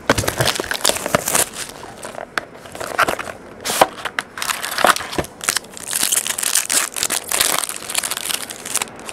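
Packaging of a trading-card box being handled and opened: the box sliding open, then a foil pack wrapper crinkling and tearing, with irregular sharp rustles and clicks that are thickest near the end.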